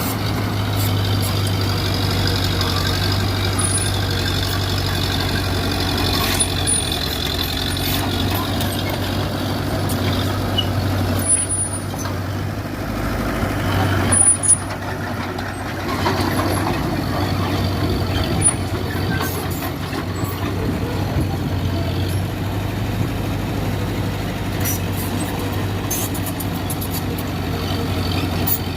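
Diesel engine of a Mitsubishi BD2G bulldozer running steadily under load, with a high squeal for the first eight seconds or so and occasional sharp metallic clanks.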